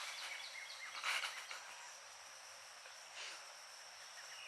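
Insects chirping steadily in one high, thin tone. A hiss fades out over the first second and a half.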